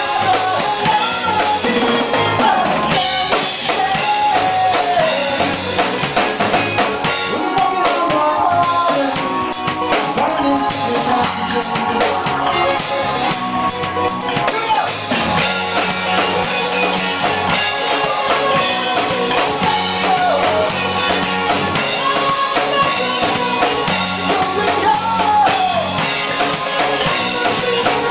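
Live band playing, the drum kit keeping a steady beat under a melodic lead line that bends up and down in pitch.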